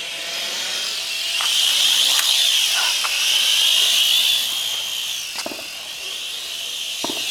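Syma X1 mini quadcopter's small motors and propellers whining at a high pitch that wavers up and down with the throttle, louder for a couple of seconds in the middle. A few short sounds cut in over the whine.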